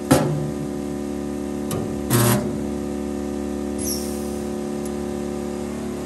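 Two short bursts about two seconds apart, a resistance spot welder firing as sheet-metal tunnel panels are welded to the floor, over steady background music.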